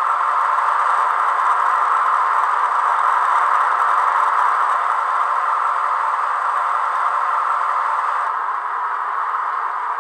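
Diesel engine idling sound of an M 262.101 railcar played by a model locomotive's Zimo sound decoder through its tiny loudspeaker: a steady, rattling diesel idle with no bass. The sound thins slightly about eight seconds in.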